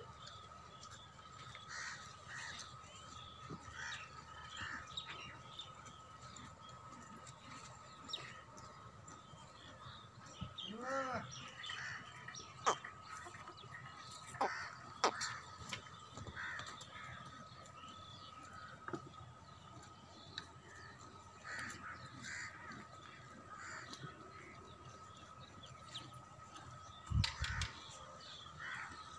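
Crows cawing repeatedly in the background over a steady high drone, with a single pitched call about eleven seconds in and a few sharp clicks and low thumps.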